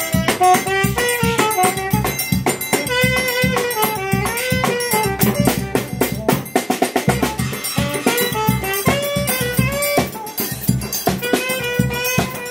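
Saxophone playing the lead melody over accordion, a snare drum with cymbal and a zabumba, in a steady, busy dance rhythm.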